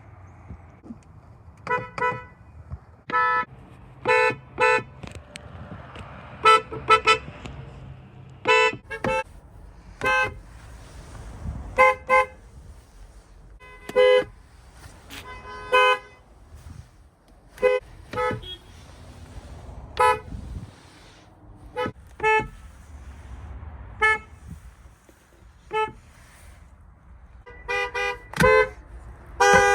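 Kia car horns giving short toots, single beeps and quick double beeps about every one to two seconds, with a cluster of beeps near the end.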